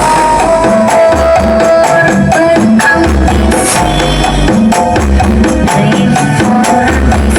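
Loud music with heavy bass pulses, a melody and a busy percussion beat, played through a huge truck-mounted 'sound horeg' carnival sound system.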